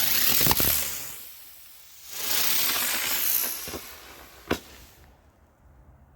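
Three-stage spaceship flying firework spinning and hissing in two surges as its stages burn. A single sharp crack comes about four and a half seconds in, then it goes quiet.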